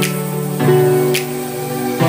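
Soft background music: sustained chords, a new one struck about every second and a half.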